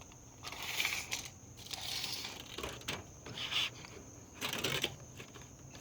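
Several short scraping and rattling sounds of things being handled, four brief bursts a second or so apart.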